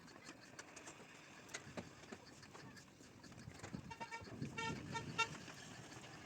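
Scattered hailstones striking, heard as irregular faint clicks, with a short run of high beeps about four to five seconds in.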